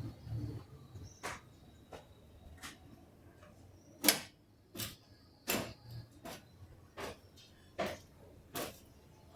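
A run of sharp knocks during work on a motorcycle swingarm, about one every three-quarters of a second. The loudest comes about four seconds in.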